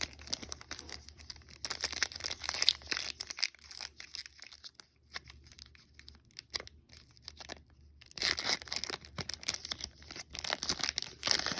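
Foil wrapper of a trading card pack being torn open and crinkled, with crackly rustling in two spells separated by a quieter few seconds.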